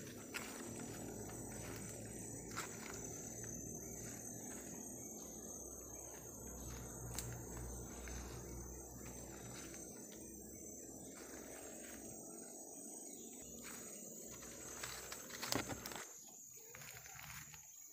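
A steady, high-pitched drone of tropical forest insects, with the low rustle and crunch of footsteps moving through dry leaf litter and undergrowth. A few sharp twig snaps come through, the loudest about fifteen seconds in.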